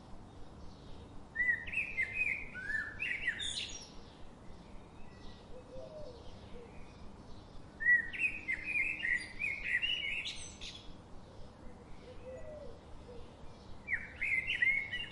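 A bird singing three phrases of quick, rising and falling notes, several seconds apart, over fainter bird calls and a steady background hiss.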